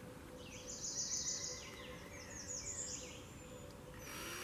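A small songbird singing a quick run of short, high, down-slurred notes for about two seconds, then stopping.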